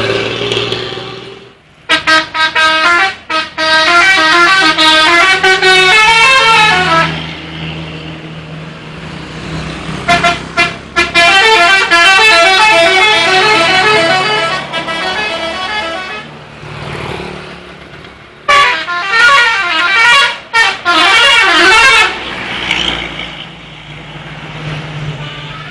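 Indonesian bus 'telolet' horn: a multi-tone musical horn playing quick stepping melodies, loud, in three long bursts about 2, 10 and 18 seconds in.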